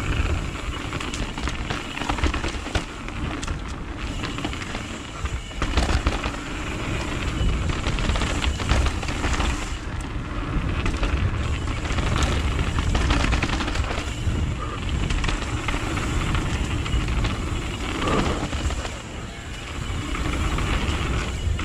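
Mountain bike running fast down a dirt trail, picked up by an onboard camera: wind buffeting the microphone, tyres on dirt, and the bike rattling and knocking over bumps many times.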